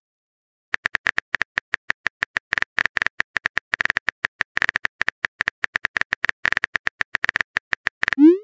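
Synthetic keyboard-typing sound effect from a texting-story app: a rapid run of short clicks, several a second, one per letter as a text message is typed. Just before the end comes a short rising swoop, the send sound.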